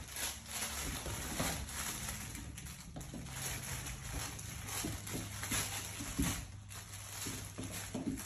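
Mini goldendoodle puppies' paws pattering and scrabbling on a hard floor, a dense, irregular scatter of small taps and scuffs as a litter plays.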